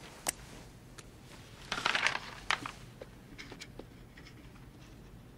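Paper rustling as contract pages in a folder are handled and turned, with a few light clicks and taps. The rustle is loudest about two seconds in.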